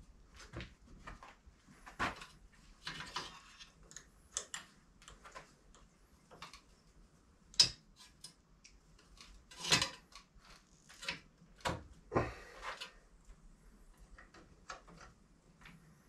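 Irregular clicks and knocks of hand tools and parts being handled, with a few short scrapes about 3, 10 and 12 seconds in and one sharp knock about seven and a half seconds in.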